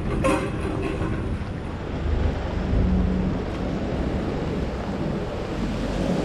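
Steady hiss of heavy rain on a city street, with a low rumble of wind on the microphone and a passing vehicle.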